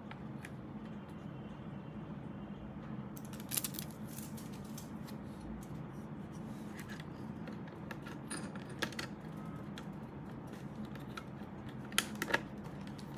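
Small clicks and taps of plastic and metal parts being handled on a motherboard while an M.2 heatsink and its tool-less latch are fitted. There is a small cluster of clicks about three and a half seconds in, a few scattered ones later, and two sharp clicks near the end, over a steady low hum.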